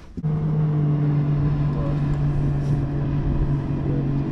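A bass boat's motor running with a steady low hum, starting suddenly just after the start.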